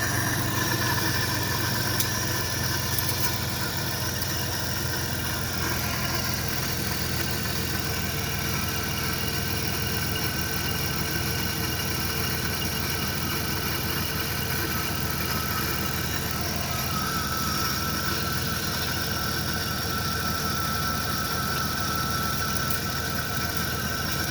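The engine of a 1998 Dodge Grand Caravan with a blown transmission, idling steadily with a high-pitched squeal over it. A second, higher squeal joins about two-thirds of the way through.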